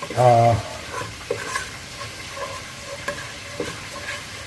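Oil-and-flour roux sizzling in a pan while being stirred, a steady hiss with scattered light scraping clicks.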